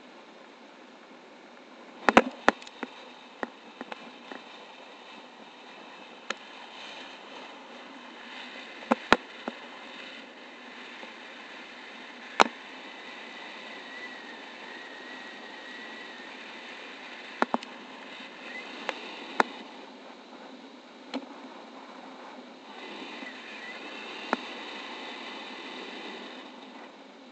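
Steady airflow rushing over the camera during a paraglider flight, with sharp clicks or snaps at irregular intervals, about a dozen in all.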